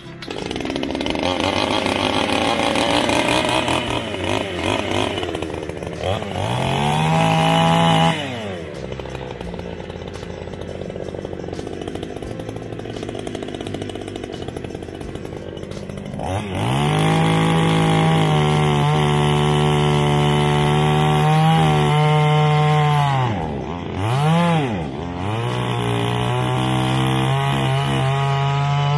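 Erman HM5200A two-stroke chainsaw running: it revs up about six seconds in, drops back to a lower speed, then is held at high revs from about sixteen seconds, with two brief drops in speed near twenty-four seconds.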